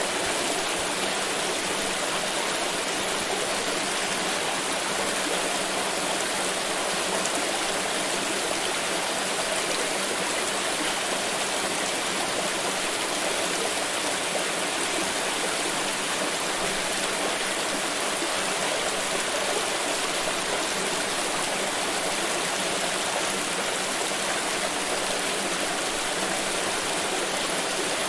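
Water pouring in a steady, unbroken splashing rush, even in level throughout.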